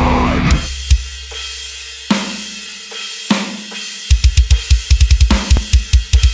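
Heavy metal track with a down-tuned eight-string electric guitar and drums. After a brief full-band passage it breaks to a few isolated hits over a ringing low note. About four seconds in it kicks back in with rapid, stop-start low guitar chugs locked to the kick drum.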